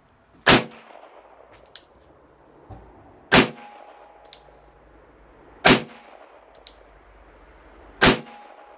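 Nagant M1895 revolver (7.62×38mmR) firing four single shots about two and a half seconds apart, each with a short ringing tail, with a faint click between shots.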